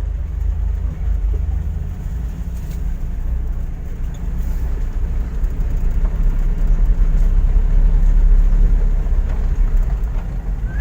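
Low, steady rumble of a vehicle driving along a rough dirt track, getting somewhat louder in the second half.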